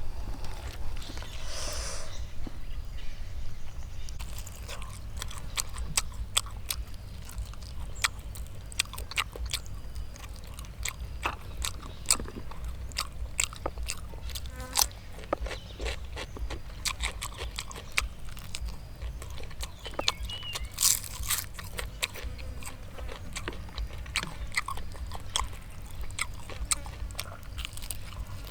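Crunching bites and chewing of crispy fried chicken wings: irregular sharp crunches and crackles, several a second, over a steady low rumble.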